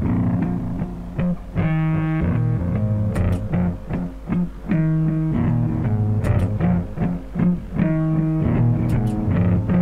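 Solo guitar playing a blues piece: held low single notes, with chords struck now and then.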